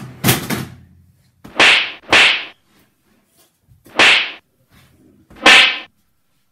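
A round black cushion swung hard and whacking down on someone lying on a couch, about five sudden swishing blows at uneven intervals, each fading within half a second. The last blow has a short high squeal in it.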